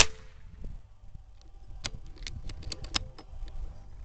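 A quick run of about eight sharp, light clicks spread over about a second, starting about two seconds in, over a low steady background.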